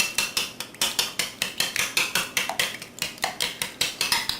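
Eggs being beaten in a bowl with a utensil, which clicks rapidly against the bowl's side, about five or six strokes a second.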